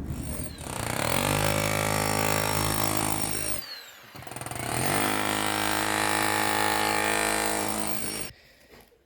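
A handheld power tool run in two bursts of about three seconds each: the motor spins up, runs steadily, then stops, with its whine falling away after the first burst.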